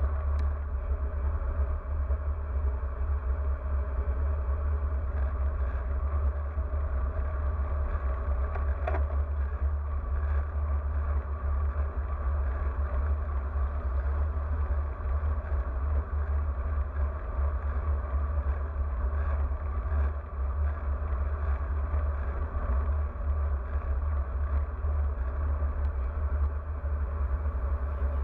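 Wind buffeting the microphone of an action camera on a moving road bicycle: a steady low rumble mixed with tyre and road noise at riding speed, with a brief faint squeak about nine seconds in.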